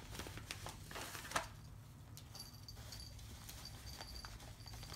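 A small dog's claws clicking on a hardwood floor and gift wrap rustling as it tugs a toy out of a wrapped present, with a few sharper knocks, the clearest about a second and a half in.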